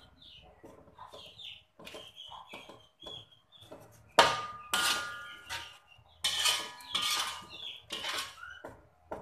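A slotted metal spatula scraping and knocking against a metal wok while a thick curry paste is stirred, in irregular strokes that are loudest in the middle and second half. The wok rings briefly after the harder strokes.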